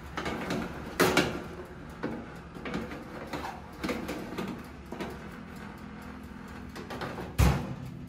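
A metal roasting tray clanks and scrapes as it is slid onto the wire rack of a Kenwood countertop electric oven. There is a sharp clank about a second in, smaller knocks after it, and the oven's door shuts with a loud thump near the end.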